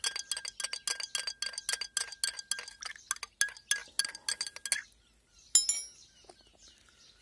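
A spoon stirring liquid in a glass jar, clinking rapidly and steadily against the glass as humate fertilizer is mixed in. The clinking stops just before five seconds in. About half a second later comes one louder, ringing clink.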